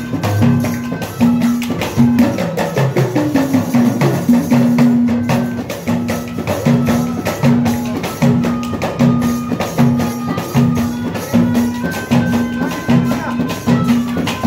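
Indian folk devotional music played on a two-headed hand drum and wooden kartal clappers with jingles, in a fast steady beat. A low note repeats about twice a second under a dense clatter of jingles.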